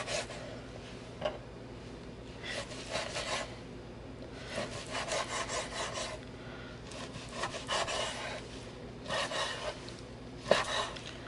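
Knife slicing through a cooked strip loin steak onto a wooden cutting board: about six separate cutting strokes, each a second or so long, with a sharp knock near the end.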